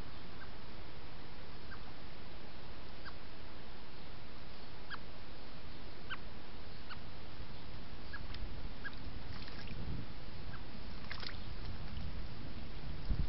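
Steady background hiss with short, faint bird chirps about once a second. A low rumble, like wind on the microphone, comes in near the end.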